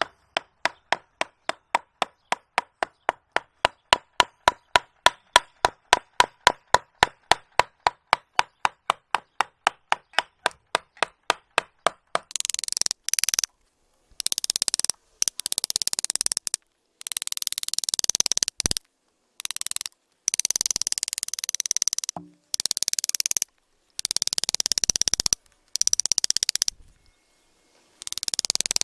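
Mallet striking a carving gouge into a tree trunk in a fast, even rhythm of about four to five blows a second for roughly twelve seconds. After that comes a series of hissing scraping strokes on the wood, each a second or two long, with sudden breaks between them.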